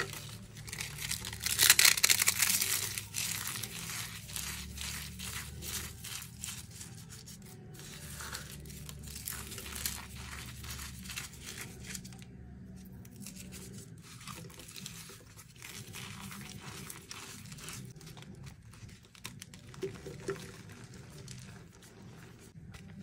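Blue-dyed gym chalk block crushed and crumbled by hand, making dense crunching and crackling as it breaks into powder. It is loudest about two seconds in.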